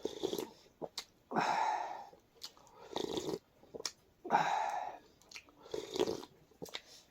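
A person eating hot noodle soup (thukpa): two loud slurps, a little over a second in and about four seconds in, with shorter slurps, chewing and small clicks in between.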